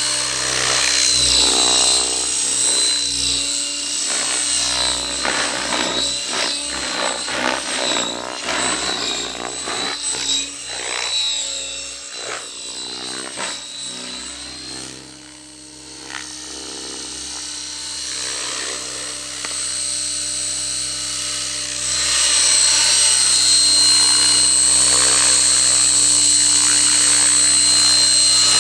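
Fusion 50 radio-controlled model helicopter in flight: a loud, high-pitched rotor and engine whine whose pitch sweeps up and down as it manoeuvres and passes. It fades about halfway through as the helicopter is far off, then comes back louder and steady for the last several seconds as it comes down close.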